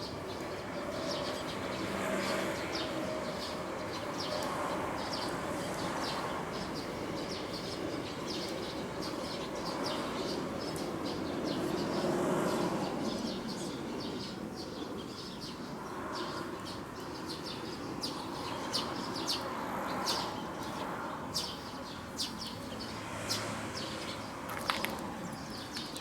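Many short, high bird chirps, more frequent in the second half, over a steady outdoor background noise that swells and fades a few times.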